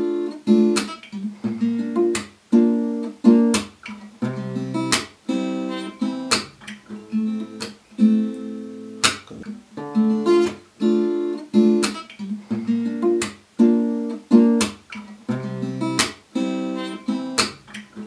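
Steel-string acoustic guitar fingerpicked in D minor, cycling through the chords D minor, A♯ (B-flat), C and A minor, with crisp accented strikes on the strings about every second.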